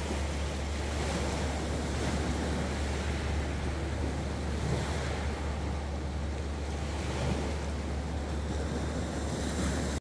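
Small waves washing onto a pebble and sand beach in a steady wash of surf, with a low wind rumble on the microphone.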